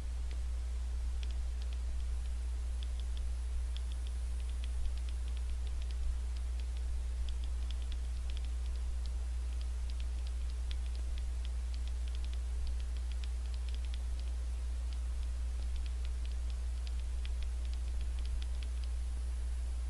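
Light, quick taps of thumbs typing on a smartphone touchscreen, coming in irregular runs of several a second, over a steady low hum.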